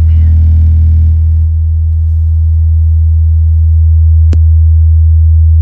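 Belva 12-inch car subwoofer playing a steady, loud 40 Hz test tone, a continuous deep hum driven at about 100 watts. A single short click sounds about four seconds in.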